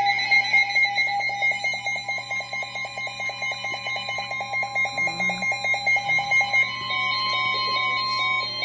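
Emergency Alert System alert tone: a loud electronic beep pulsing rapidly over a steady higher tone. The fast pulsing stops about two-thirds of the way through, giving way to slower, sparser beeps. It marks the start of a broadcast warning.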